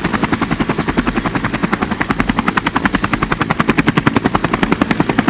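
Boat engine running, a fast, even chugging of about twelve beats a second.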